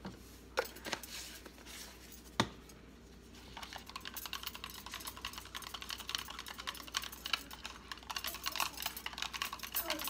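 A few separate clicks and one sharp knock, then from about three and a half seconds in a small wire whisk beating rapidly against the sides of a plastic cup, mixing egg and mayonnaise, a fast run of small clicks.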